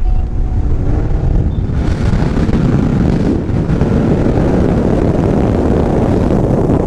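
Ford Mustang accelerating, its engine note rising in pitch over the first couple of seconds, then a loud steady run mixed with heavy wind rush on a microphone held out of the open window.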